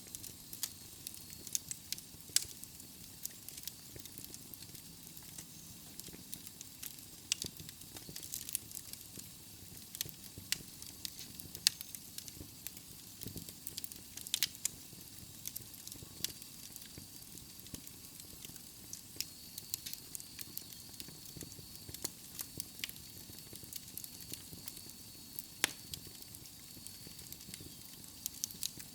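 Wood fire burning in a fireplace: a soft steady hiss with irregular sharp crackles and pops from the burning logs, a few louder pops standing out.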